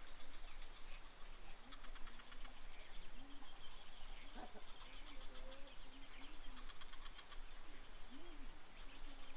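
Quiet rural ambience: a steady insect hiss with patches of fast insect chirping, and faint short animal calls in the background.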